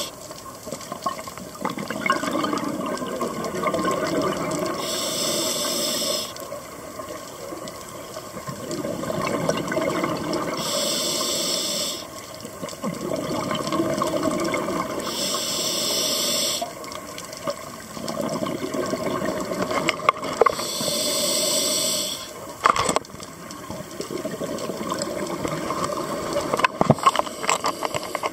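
A scuba diver's regulator breathing underwater: four short hissing inhalations about every five seconds, each followed by a longer bubbling exhalation. A few sharp clicks near the end.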